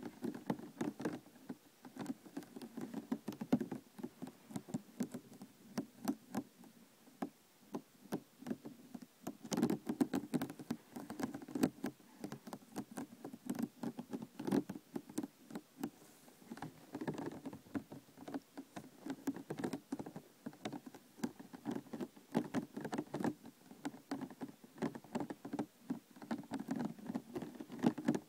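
Fingers tapping, scratching and handling a plastic container: a dense, irregular run of light taps, clicks and crinkles.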